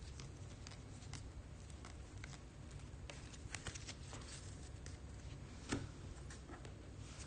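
Trading cards being flipped through by hand: faint, irregular soft clicks and flicks as each card is slid off the stack, over a low steady hum, with one sharper snap about three-quarters of the way through.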